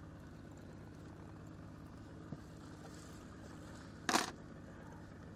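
Boat motor running steadily at idle, a low even hum. Just after four seconds in there is one short, loud rush of noise.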